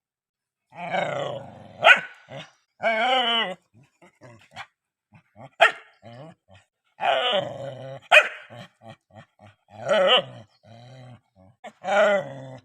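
A dog barking: sharp single barks about two seconds apart, with longer drawn-out calls that waver in pitch in between.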